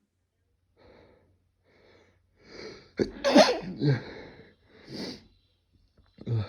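A man's sneeze: a few catching inhales that grow louder, then one loud, sudden sneeze about three seconds in, followed by a few short breaths.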